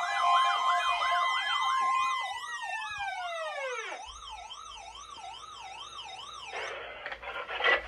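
Weather alert radios sounding their siren alarms, set off by the weekly test of the warning alarm tone: a wailing tone sweeps up and down about twice a second, while a steady tone glides down in pitch and dies away about four seconds in. The wailing stops suddenly about six and a half seconds in and gives way to a hiss of radio static.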